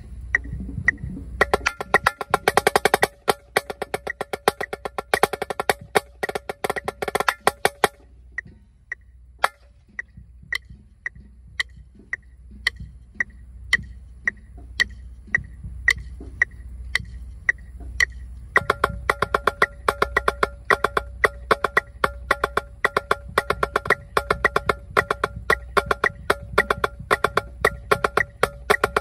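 Yamaha marching snare drum played with sticks: a snare etude at 112 beats per minute, with dense runs of fast strokes and rolls, a sparser stretch in the middle, then dense playing again. A metronome clicks steadily on the beat throughout.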